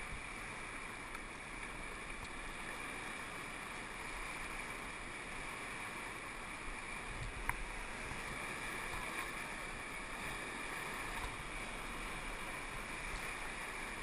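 Steady rush and hiss of whitewater rapids churning around a paddle raft, with one sharp knock about halfway through.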